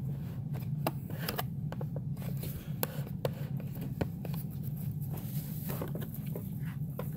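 Plastic clicks, knocks and scraping as a brush roll is worked into the base of a Bissell PowerForce Compact vacuum. The roll is not yet seating properly and binds with too much friction. A steady low hum runs underneath.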